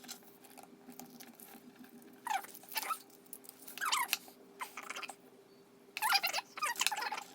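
Small pen knife scraping and slitting along the strongly glued seal of a paper envelope, in short scratchy strokes, with a longer run of scraping near the end.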